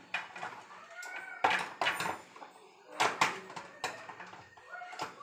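Repeated sharp knocks and clicks, about six spread over several seconds, as a Korean blind's headrail is pushed up and snapped into its mounting brackets.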